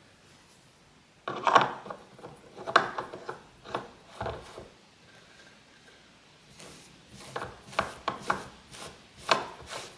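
A turned wooden sofa leg being screwed in by hand against the couch base and its fabric skirt: short scraping, rubbing strokes in two runs, with a pause in the middle.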